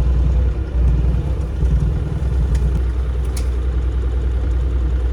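Bobcat E35 mini excavator's diesel engine running steadily with a low, even drone.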